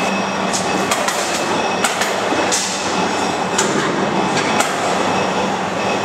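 Loud, steady industrial din with a low hum. About half a dozen sharp metallic knocks or clanks fall through it at uneven intervals, typical of heavy machinery and steel being handled.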